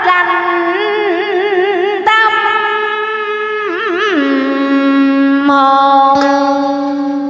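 A woman singing long, held notes with wide vibrato in Vietnamese cải lương style, dropping to a lower note about four seconds in and holding it. A plucked lute adds a few notes beneath her voice.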